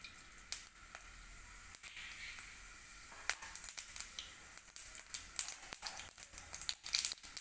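Mustard and cumin seeds popping and crackling in hot oil in a steel kadhai as a tempering. The pops are scattered at first and become rapid over the last few seconds.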